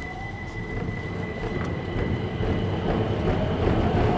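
Keihan 800 series train pulling away in a subway tunnel, heard from inside the car. The traction motors whine slowly upward in pitch as the low rumble of the wheels grows louder.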